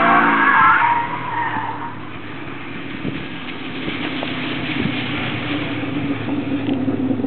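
Tyres squealing as a V8 car slides on a wet skid pan, fading out about a second in, then the V8 engine running steadily under a hiss of tyres on wet concrete.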